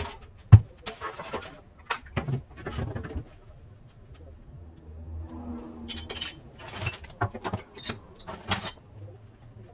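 A clatter of knocks, clicks and rattles from objects being handled, with one sharp loud knock about half a second in.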